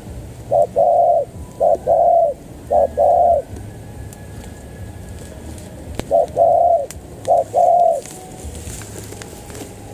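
Spotted dove cooing: five coos, each a short note followed by a longer one, three in a row, then a pause of about two and a half seconds before two more.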